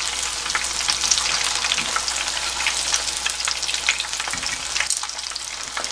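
Breaded squid rings and battered squid deep-frying in shallow oil in a frying pan: a steady sizzle full of small crackling pops.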